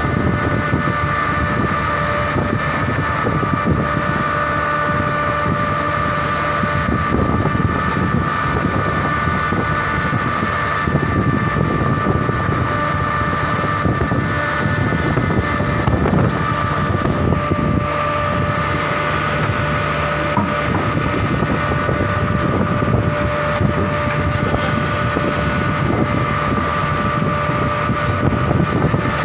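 A longline fishing boat's engine running steadily: a constant rumble with a steady whine over it.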